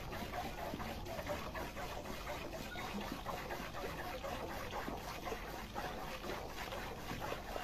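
Ewe being milked by hand: streams of milk squirting into an enamel pot in a run of short, repeated squirts.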